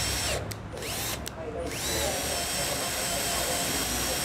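Cordless drill turning a thread tap into the centre hole of an aluminium extrusion profile. The motor starts and stops in short bursts in the first two seconds, each start a rising whine, then runs steadily.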